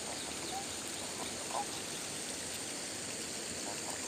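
Riverside ambience: the steady rush of a shallow river running over rocks, with a few short animal calls a second or so apart.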